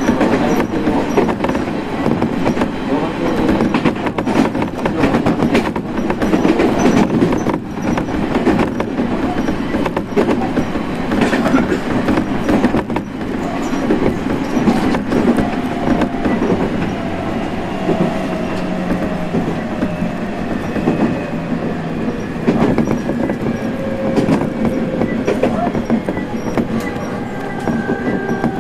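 Electric train heard from inside the carriage, wheels rumbling and clicking over the rail joints. From about halfway a whine from the traction motors slowly falls in pitch as the train brakes.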